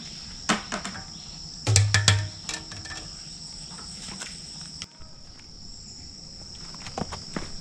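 Insects chirring in a steady high drone, with a few clicks and a short cluster of louder knocks and thumps about two seconds in.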